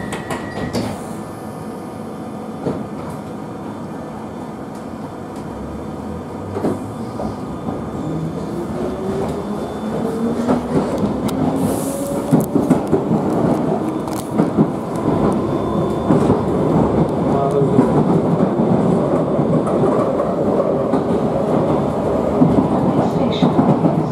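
London Underground 1973 Stock Piccadilly line train pulling away with its doors shut: the traction motors whine, rising in pitch as it picks up speed, while the running noise of wheels on rails grows louder through the second half. A high steady tone stops within the first second.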